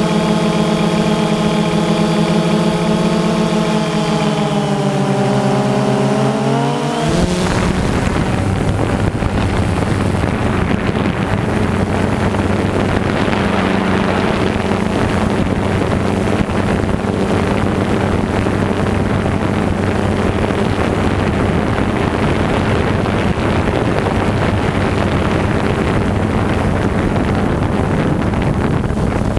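FPV model aircraft's motor and propeller heard from onboard: a steady buzzing drone that slides down in pitch from about four seconds in as the motor slows. About seven seconds in it gives way to a loud rushing wind noise on the microphone, with a low hum beneath.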